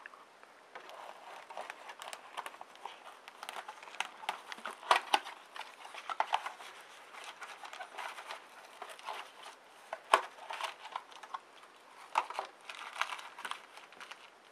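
Trading card pack wrappers being torn open and crinkled while the cards are handled: irregular sharp crinkles and clicks, the loudest about five and ten seconds in.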